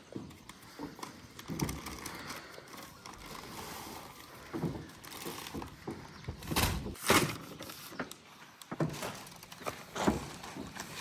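Scattered knocks and thumps of a vehicle being unloaded of cement bags, with the two loudest close together a little past the middle.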